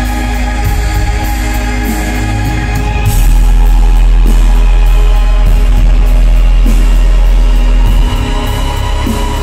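Live band playing loud amplified music, heard from within the concert crowd. A deep, heavy bass swells louder about three seconds in and falls back near the end.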